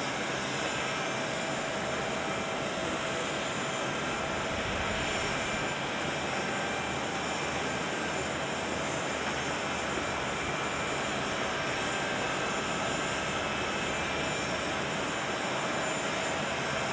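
Boeing 777-300 airliner's jet engines running at idle: a steady rush of noise with thin, even whining tones over it.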